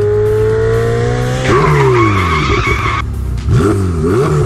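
Sports car sound effect: the engine note climbs, then the tyres screech for about a second and a half, and near the end the engine is blipped up and down in quick revs.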